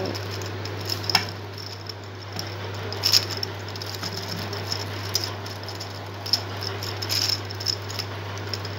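Plastic gear cube being twisted by hand: scattered clicks and rattles as its layers and gears turn, over a steady low hum.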